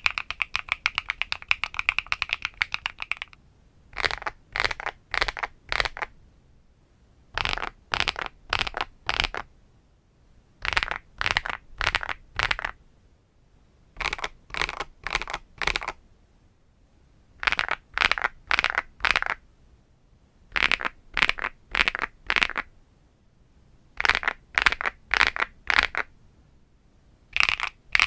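Mechanical keyboard with HMX Macchiato linear switches: rapid continuous typing, then about three seconds in it changes to deliberate sets of about eight separate keystrokes (A-S-D-F, J-K-L-;), each set followed by a pause of a second or so, repeating.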